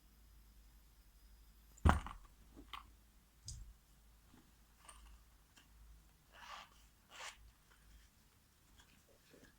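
Fidget spinners being handled: one sharp click about two seconds in, then a few fainter clicks and short rustles.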